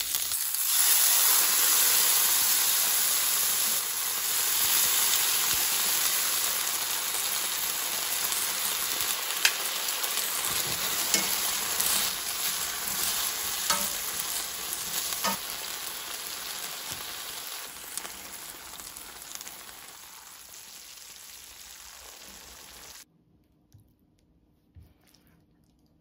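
Food frying in a hot pan, a steady sizzle with a few sharp clicks. It dies down gradually and cuts off abruptly near the end.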